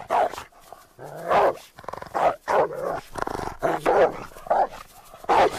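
Dog barking aggressively in a rapid string of about eight short, loud barks.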